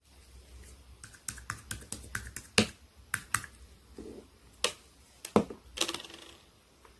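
Purple glitter slime being pressed and poked by hand, giving a string of irregular sharp clicks and pops, with a few louder pops among them.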